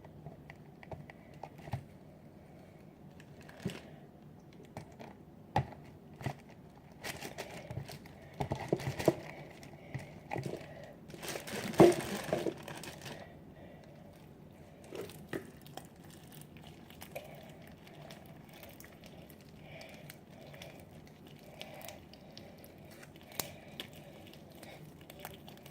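Homemade borax-and-glue slime being mixed and handled, with intermittent crinkling, rustling and light clicks. A louder stretch of crinkling comes about twelve seconds in.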